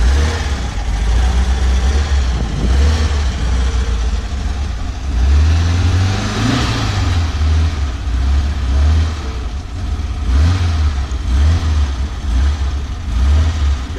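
VW bus engine running rough and being revved, rising in pitch about six to seven seconds in, on a faulty carburetor that no longer holds an idle.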